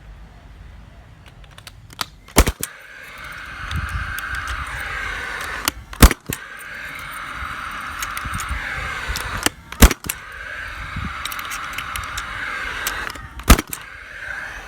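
GFS 1000 gas-powered concrete nailing gun firing four times, a sharp loud shot every three to four seconds, driving 19mm pins through washers into a concrete slab, with a steady whir in between shots.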